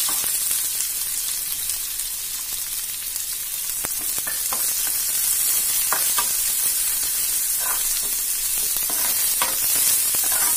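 Chopped onions sizzling in hot oil with cumin seeds in a steel pan, with a steady hiss. Several short scrapes of a steel ladle against the pan as the onions are stirred.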